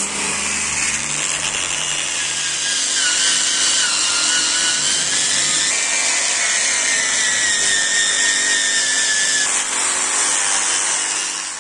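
Hand-held angle grinder with an abrasive disc running against the steel edge of a machete blade: a steady grinding hiss with the motor's whine sinking and rising as the disc is pressed on and eased off. It winds down at the very end.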